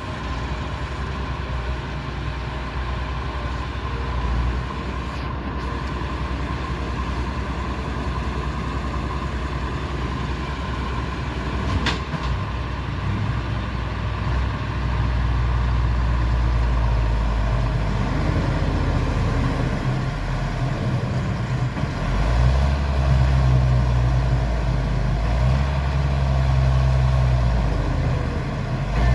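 Heavy truck's diesel engine running, getting louder around the middle and again near the end as it works harder. A single sharp click comes about twelve seconds in.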